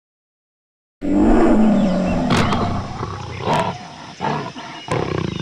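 A big cat's roar, used as a sound effect, starts about a second in and is loudest at first. Several short sharp sounds are struck through it, and it ends in a fast pulsing growl.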